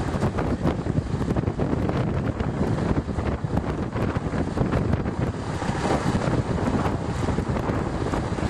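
Wind buffeting the microphone, over the low rumble of a heavy-haulage lorry's diesel engine moving a low-loader trailer.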